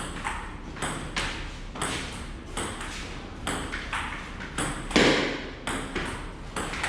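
Table tennis rally: a ping-pong ball clicking off the paddles and the table in quick succession, about two to three clicks a second, with the loudest hit about five seconds in.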